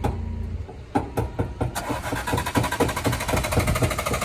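A few sharp knocks, then from about two seconds in a car engine cranking over on its starter in rapid, even pulses, with a fuel pump that has been giving up.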